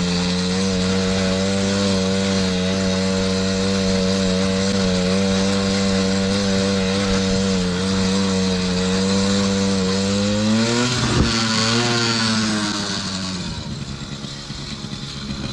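Small 50cc two-stroke engine of a kids' ATV running at steady high revs. About ten seconds in the revs rise and waver briefly, then the engine drops back and runs quieter near the end.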